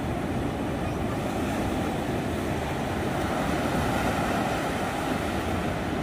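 Ocean surf: waves breaking and washing in over the shallows of a beach, a steady rushing noise that swells a little about halfway through.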